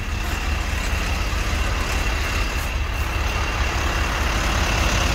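Heavy truck's diesel engine running steadily, a low even rumble, with a faint steady high whine above it.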